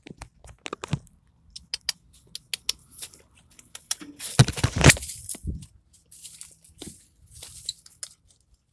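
Scattered crunching and rustling, like footsteps and handling noise of someone moving through dry yard debris, with a louder scuffling rush about four and a half seconds in.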